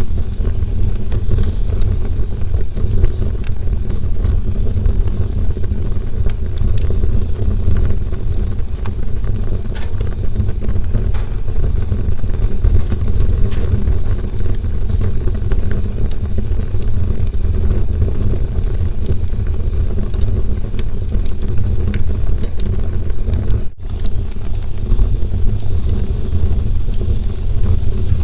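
Campfire burning with a steady low rumble and scattered small crackles and pops. The sound cuts out for a split second near the end.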